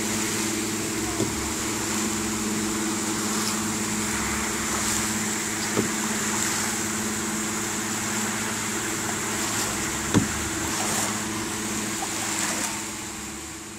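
A steady motor hum holding one pitch, over an even hiss. Three short sharp knocks come about a second in, near the middle, and about ten seconds in.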